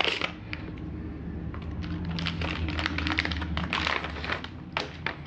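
Crinkling and rustling of a shiny anti-static plastic bag as a hard drive is unwrapped from it, in irregular bursts of small crackles, over a steady low hum.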